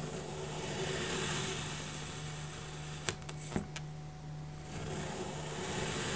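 Kitchen knife slicing down through a block of kinetic sand, a steady hissing rustle of the grains parting. About halfway through come two sharp knocks half a second apart, and near the end the rustle of the next slice begins.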